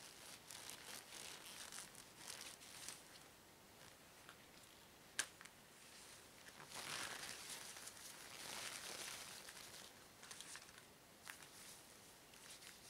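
Green rubber gloves handled and pulled on over black leather gloves: faint rustling and crinkling of glove material, with one sharp click about five seconds in and a longer stretch of louder rubbing a little past the middle.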